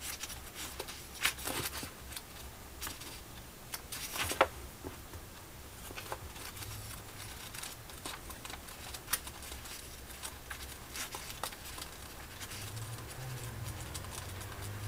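Pages of a paperback book flipped by hand, a soft papery flutter broken by many quick, irregular page flicks, the two sharpest about a second and four seconds in.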